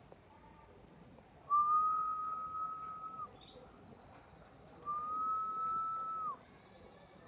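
Two long, steady whistled notes at one pitch, each lasting about a second and a half, with a pause between them. A faint, rapid, high-pitched trill runs under the second half.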